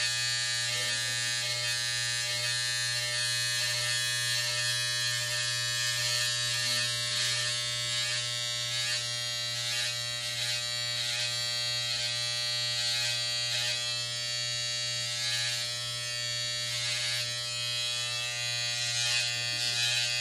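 Electric hair trimmer buzzing steadily as its blade is worked along the hairline, with faint scratchy changes as it cuts the hair.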